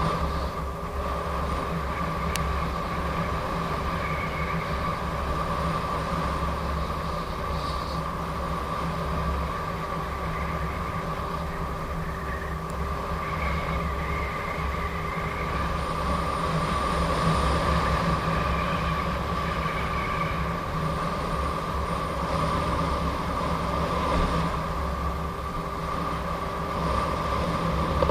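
Gotway MSP electric unicycle riding at speed: a steady high hub-motor whine over a constant low rumble of wind on the microphone, swelling slightly partway through.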